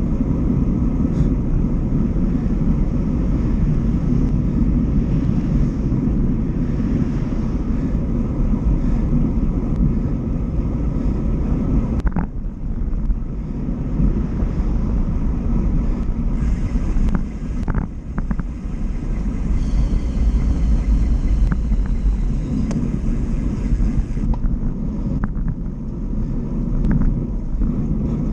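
Wind buffeting the microphone of a handlebar-mounted camera on a moving road bike, a continuous low rumble mixed with tyre noise on the asphalt. A few sharp knocks come from bumps a little under halfway and just past halfway, and a higher hiss joins for several seconds past the middle.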